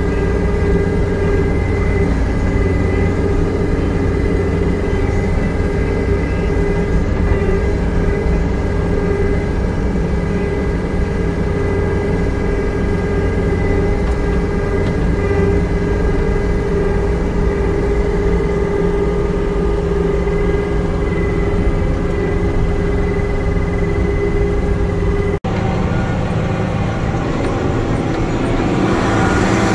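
Diesel engine of a skid steer loader with a grapple bucket running steadily, with a steady high tone over the engine. About 25 seconds in it cuts suddenly to a different engine: a Cat off-road dump truck driving, heard from inside its cab.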